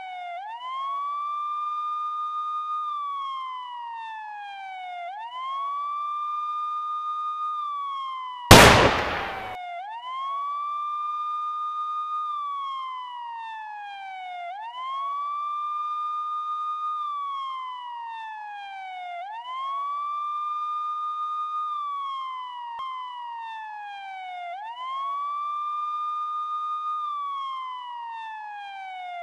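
Siren wailing in a repeating cycle: each rises quickly, holds high for about two seconds, then falls slowly, about every five seconds. About eight and a half seconds in, a single loud shotgun blast cuts through with a short echo.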